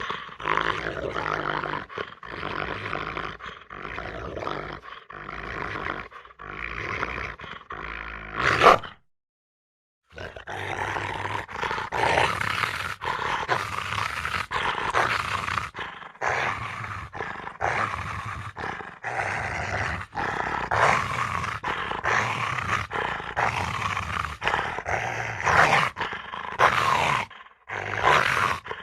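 Velociraptor creature sound effects: a string of short calls, one clip after another with brief breaks between them. The loudest call comes just before about a second of complete silence nine seconds in.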